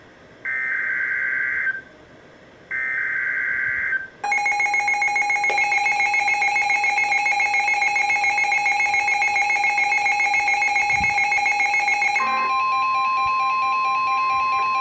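Emergency Alert System header and alert tone. Three short bursts of buzzy SAME data tones are followed by a loud, fast-pulsing attention tone for about eight seconds. About twelve seconds in it changes to a single steady high tone, the NOAA Weather Radio alert tone, which stops suddenly near the end.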